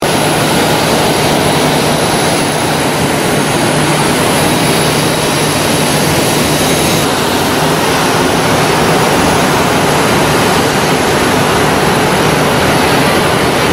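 Aircraft engine running: a loud, steady roar with a constant low hum underneath.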